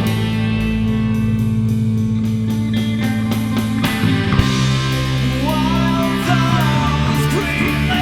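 Stoner rock band playing: heavy guitar and bass chords held over drums with steady cymbal hits. About halfway through, the cymbals thicken and a higher melody line that bends and slides in pitch comes in over the chords.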